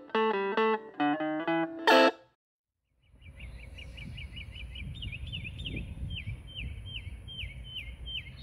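Electric guitar music, a picked melody, stops about two seconds in. After a short silence a bird chirps over and over, about three short falling chirps a second, over a low rumble.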